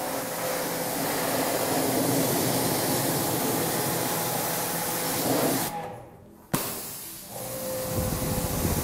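Pressure washer spraying a jet of water onto the fire brick dome of a pizza oven under construction, rinsing it clean: a steady hiss of spray with a faint motor hum underneath. It breaks off for about a second around six seconds in, then starts again.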